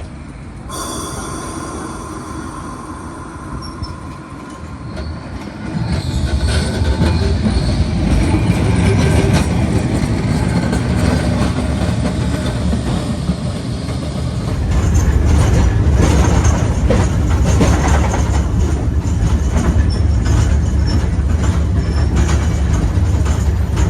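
Vintage electric tram running on its rails, with a high wheel squeal from about a second in. Its low rumble and clatter over the track grows louder about six seconds in and again near fifteen seconds.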